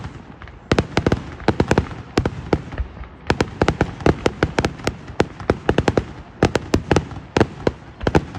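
Fireworks going off: a rapid, irregular string of sharp bangs and pops with crackling between them, which stops just before the end.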